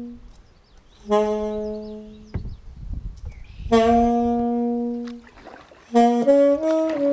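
Background music: a solo wind instrument playing slow, long held notes, three of them each about a second and a half long, then a short run of quicker notes near the end.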